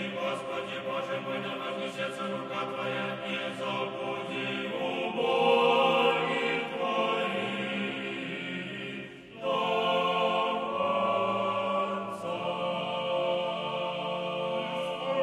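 Choir singing slow chant in long, held chords. The chords change every few seconds, with a brief break about nine seconds in.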